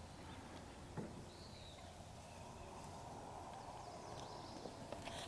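Faint outdoor ambience with a low rumble of wind or distant noise, a single soft click about a second in and a faint bird chirp shortly after.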